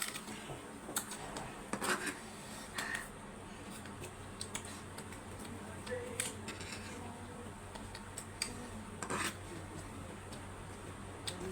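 Scattered clicks and clinks of cutlery against plates while noodles are being eaten, over a steady low hum.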